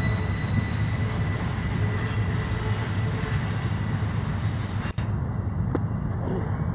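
Freight stack train rolling by: a steady low rumble of wheels on rail, with a thin, high wheel squeal that fades away over the first few seconds. The sound briefly drops out about five seconds in.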